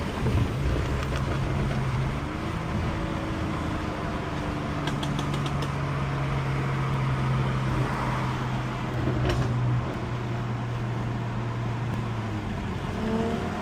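Car driving at a steady speed: a constant engine drone over road noise, with a few light ticks about five seconds in.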